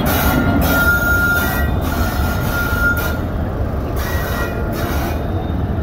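A train moving along the track with a steady low rumble. A high-pitched squeal of metal on metal runs from about half a second in to three seconds, and comes again briefly just after four seconds.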